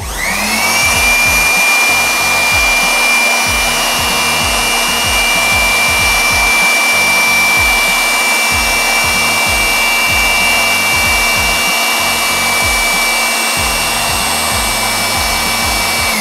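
MR D.I.Y PB004 600W portable electric blower switched on and spinning up, then running flat out: a steady high whine over a loud rush of air.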